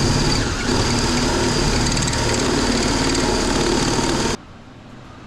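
A motor running steadily with a high-pitched whine over a lower hum, cutting off suddenly about four seconds in.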